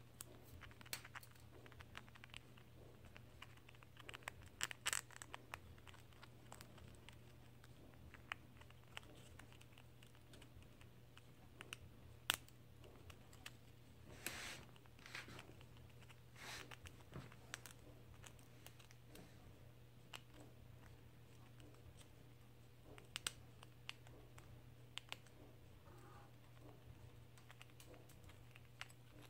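A gray squirrel gnawing and chewing on a thin wooden stick: faint, scattered crunches, clicks and scratches, with louder bursts of crackling about five seconds in and again around fourteen seconds.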